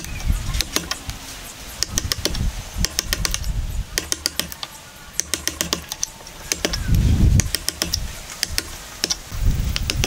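Hand chisel paring into a wooden joint, in quick clusters of sharp clicks and snaps as the blade cuts the fibres and chips break away. A few dull thumps come in between, loudest about seven seconds in.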